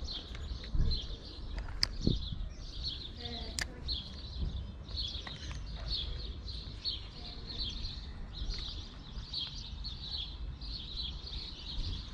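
Small songbirds twittering continuously in quick high chirps, over a steady low rumble. Two sharp clicks come in the first few seconds.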